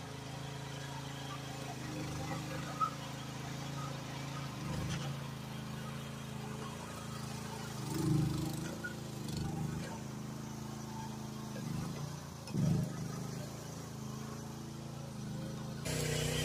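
Groundhog KH14G mini excavator's engine running steadily as the machine tracks along towing a loaded dump trailer, swelling briefly twice. Near the end the engine sound jumps abruptly louder.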